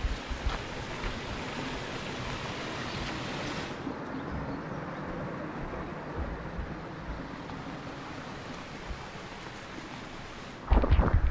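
Steady rush of water and wind with no speech, as on a small boat out on the water. Near the end comes a short burst of loud, low thumps.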